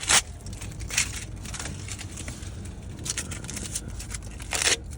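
A few sharp clicks and knocks with some rustling, like an object being handled, over a steady low hum; the loudest comes near the end.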